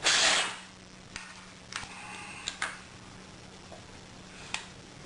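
Hands handling laptop and hard-drive parts: a short rustling scrape at the start, then a few small sharp clicks and taps spread over the following seconds, over a faint steady hum.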